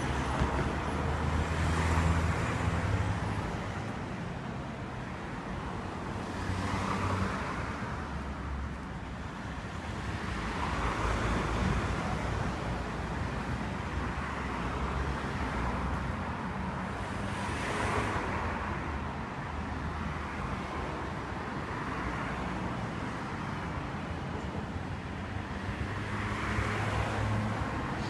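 Road traffic going by: a steady hum with several vehicles passing a few seconds apart.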